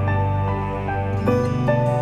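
Background music: a gentle melody of held notes over a sustained bass line, the bass shifting to a new chord a little over a second in.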